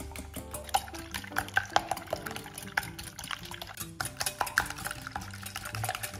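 Wire whisk beating eggs in a glass bowl: quick, irregular clicks of the wires against the glass with the slosh of the liquid egg, over soft background music.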